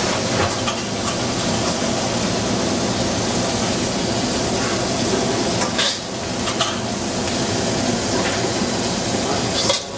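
Steady rushing noise of a restaurant kitchen's ventilation, with a few short clinks about six seconds in and again near the end.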